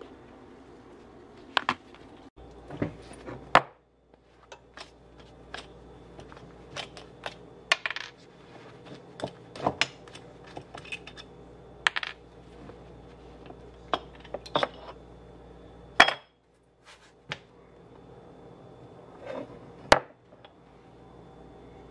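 Irregular metallic clinks and taps as a two-piece aluminium swimbait mold is unbolted and taken apart on a workbench: steel bolts and the aluminium mold plates knocking and being set down, with a few louder clanks, over a faint steady hum.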